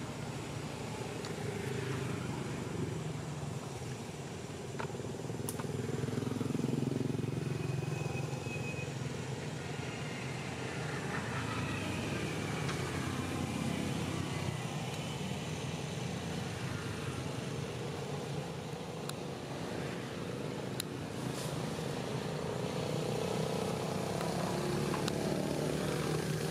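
Steady rumble of motor vehicle engines passing by, swelling louder about six seconds in and again near the end.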